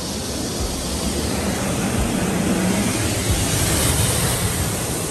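High-pressure water jets of a touchless automatic car wash spraying onto the car's windows and body, heard from inside the cabin. It is a steady rushing spray that grows louder as the jets sweep closer, loudest about four seconds in.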